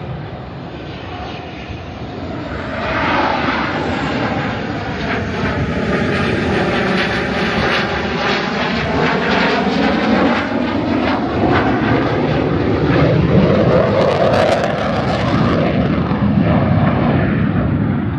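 Military fighter jet flying low overhead, its jet engine roar swelling about three seconds in and staying loud, the tone sweeping down and up as it passes over.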